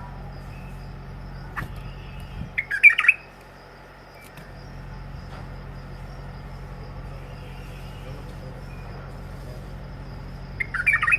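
Bulbul giving two short bursts of loud chirping calls, one about three seconds in and another near the end, over a steady low hum.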